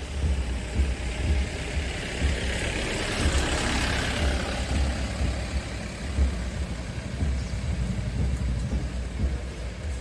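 Street noise by a road: a heavy, uneven low rumble of wind buffeting the microphone, and a motor vehicle whose sound swells as it goes past about four seconds in.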